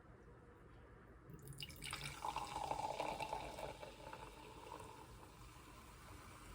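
Liquid being poured into a cup. It starts about a second and a half in, is loudest for the next couple of seconds, then tapers off.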